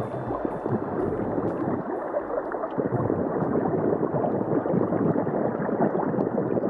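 Underwater bubbling and gurgling over a dense, steady wash, the sound of divers' exhaled air bubbles. A faint ticking beat of music dies away over the first few seconds.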